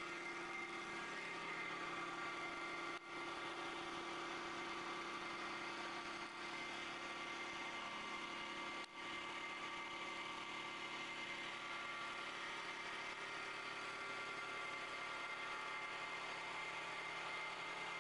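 CNC wood-turning lathe running and cutting a spinning wooden blank. It makes a steady machine whine with several held tones over the noise of the cut, broken for an instant twice.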